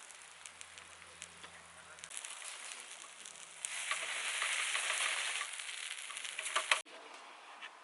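Food sizzling and crackling in a hot pan over a camp stove. The sizzle is faint at first, louder from about half-way through, and cuts off suddenly near the end.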